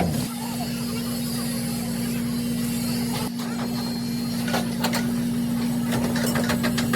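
A steady machine hum with one constant tone, and a few light clicks about three and a half and five seconds in.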